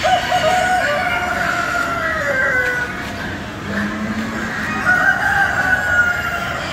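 Rooster crowing: a long crow right at the start that falls away at its end, then a second crow about five seconds in.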